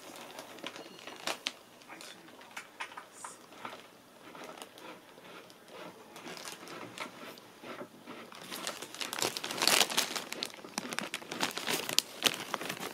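Thin clear plastic bag crinkling and crackling as a cat shifts around inside it. The crackles are scattered at first and become busier and louder for the last few seconds.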